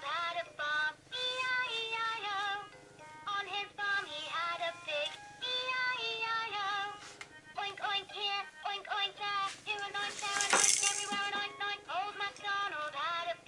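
VTech Baby's First Storytime Rhymes electronic toy book playing a nursery-rhyme song: a melody of short sustained notes with a sung voice, and a brief noisy burst about ten and a half seconds in.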